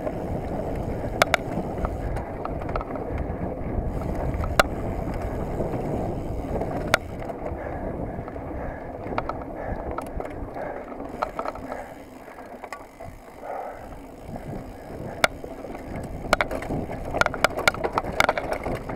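Mountain bike riding fast over dirt singletrack, heard from a camera carried by the rider: a steady rumble of tyres on the trail, with sharp clicks and rattles as the bike jolts over bumps. The rumble eases briefly past the middle, and the rattles come thick near the end over rough, rutted ground.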